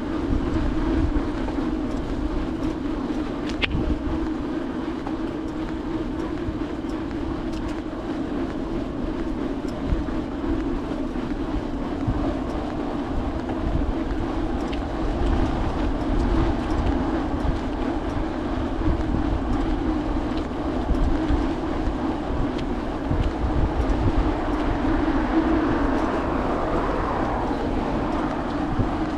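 Bicycle tyres rolling on asphalt with a steady hum, under wind buffeting on the handlebar microphone. Near the end a louder whoosh swells and fades.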